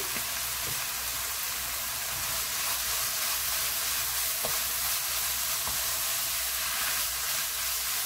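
Dried pollack strips in a sticky gochujang sauce sizzling in a hot wok as a wooden spatula stirs and tosses them: a steady high hiss with a few faint taps from the spatula.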